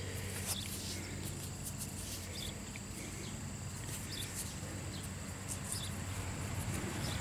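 Quiet outdoor background with a steady low hum and faint scattered clicks as fingers rub and crumble soil off a small dug-up metal object.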